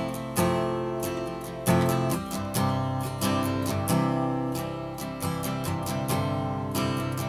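Background music: an acoustic guitar strumming chords and picking notes.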